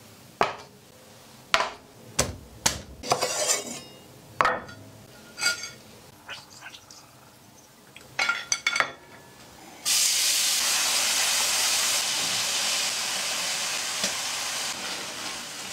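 A run of sharp clicks and knocks from kitchen handling. About ten seconds in, a loud, steady sizzle starts: minced garlic frying in oil in a frying pan.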